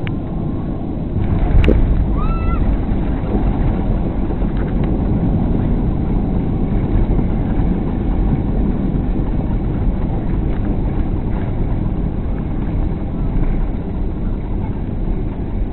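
Boeing 767 touching down, heard from inside the cabin: a sharp knock and jump in the rumble about one and a half seconds in, then the steady loud rush of the landing rollout with the wing spoilers raised.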